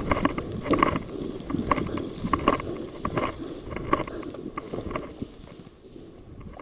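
Footsteps of a player walking at a steady pace, about one step every 0.8 s, with the crunch and rustle of ground and gear, fading out after about five seconds.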